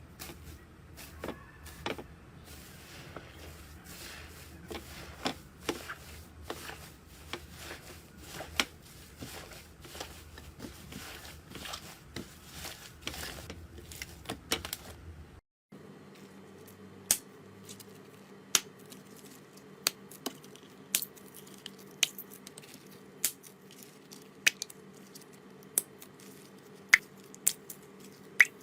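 Slime being pressed and played with by hand, making sticky crackles and clicks. About halfway through it cuts to another clip with sharper single pops about once a second over a faint steady hum.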